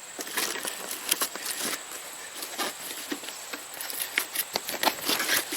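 Irregular small clicks, taps and scrapes of hand tools and metal parts being handled while working on a motorcycle's seat hardware.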